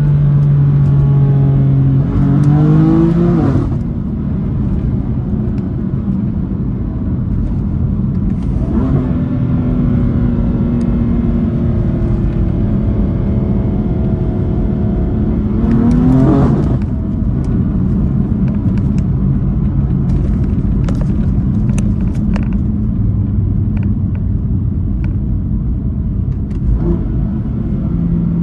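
Straight-piped BMW M4 F82's S55 twin-turbo inline-six heard from inside the cabin, cruising with its exhaust note rising sharply under acceleration about three seconds in and again about sixteen seconds in, each time dropping away as the throttle is lifted. Scattered short exhaust crackles follow the second pull as the car coasts.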